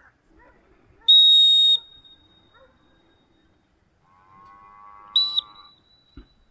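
A handler's dog whistle blown twice: one long, steady, shrill blast about a second in, then a short blast about four seconds later. Just before the second blast comes a fainter held call.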